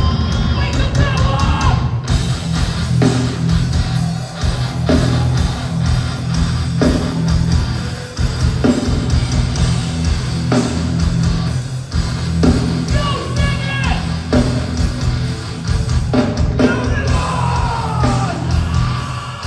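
Heavy rock or metal music with distorted guitars, a pounding low end and yelled vocals that come in at times.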